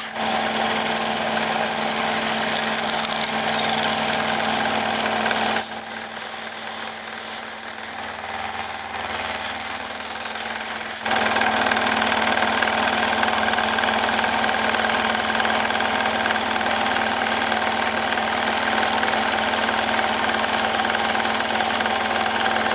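CNC milling machine running, its spindle turning an end mill that cuts the outside profile of an aluminium block: a steady mechanical whine and cutting noise. The sound drops to a lower level at about 6 s and returns at about 11 s.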